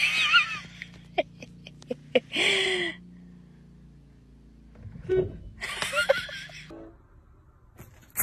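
A person laughing and giggling in several short bursts, over a low steady hum.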